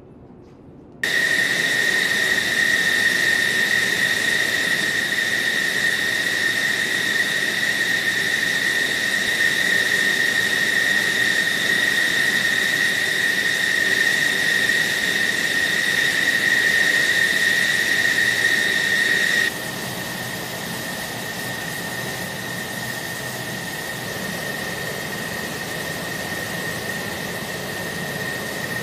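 F-16 jet engine running on the ground: a steady high turbine whine over a rushing hiss. It drops abruptly to a quieter, thinner level about two-thirds of the way through.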